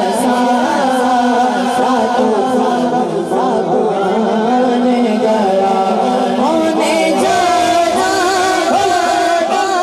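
A boy singing a naat, an Urdu devotional poem, into a microphone, in a wavering, ornamented melody over a steady low drone.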